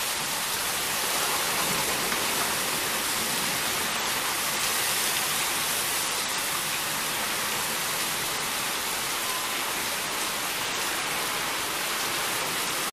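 Torrential thunderstorm rain pouring down in a steady, even hiss.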